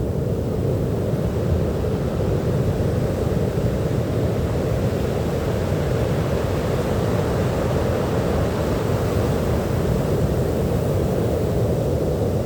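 Ocean surf: a steady low rumble of waves with no single break standing out.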